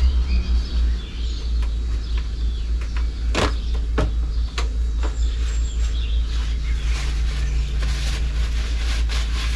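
Sharp clicks and knocks of hand work on a motorcycle's front brake over a steady low rumble.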